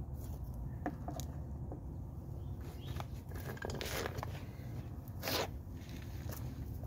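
Handling noises: clothing rustling and scuffing on pavement as a person shifts position, with scattered small clicks from a plastic pump-hose fitting being handled. A louder swish comes about five seconds in.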